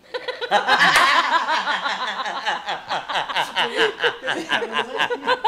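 Several people laughing together, two men and a woman, in quick overlapping bursts of laughter.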